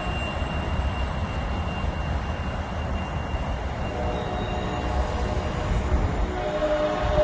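Train rolling along the tracks with a steady low rumble and rail noise, just after its horn has sounded; faint horn tones come back about four seconds in and grow a little stronger near the end.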